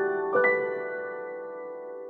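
Background piano music: a chord struck about half a second in rings out and slowly fades.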